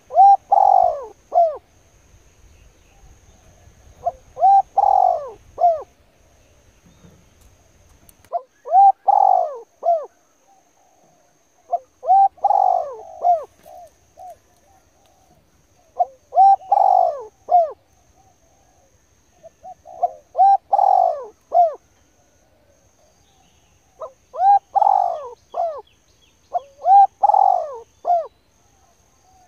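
A bird calling in short phrases of a few arching notes, repeated about every four seconds.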